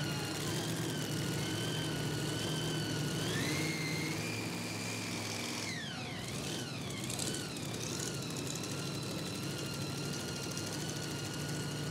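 Supercharged engine of a mini rod pulling tractor running at full throttle under load while pulling the sled, with a high-pitched blower whine over the engine note. The revs climb a few seconds in, drop sharply about six seconds in, then pick back up and hold steady.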